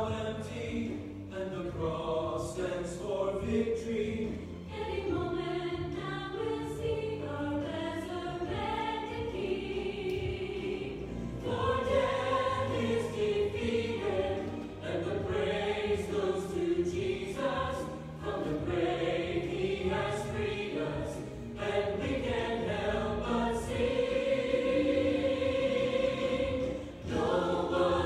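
A choir singing, in long phrases with short breaks between them.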